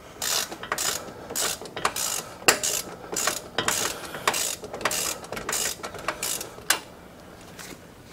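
A 1/2-inch-drive ratchet with a 21 mm deep-well socket clicking in repeated short strokes, about two a second, as it backs off a wheel hub unit bearing's retaining nut. The strokes stop about seven seconds in.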